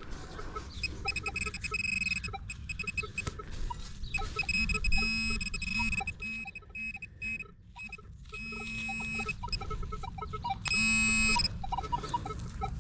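Metal detector giving intermittent electronic beeping tones over a dug target, signalling metal in the hole, in several on-off spells with a longer, stronger tone about eleven seconds in.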